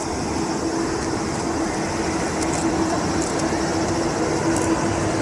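Airbus A380-861's four Engine Alliance GP7200 turbofans at approach power: a steady jet roar with a held hum, growing slowly louder as the airliner comes in to land.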